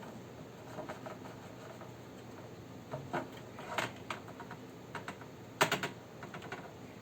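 Small clicks and taps of plastic and metal parts of a graphics card being handled and worked apart, scattered irregularly, with a quick cluster of sharper clicks near the end.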